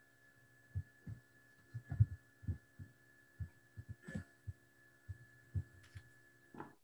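Video-call audio breaking up over a failing internet connection: a steady electronic hum with short, irregular low thumps scattered through it.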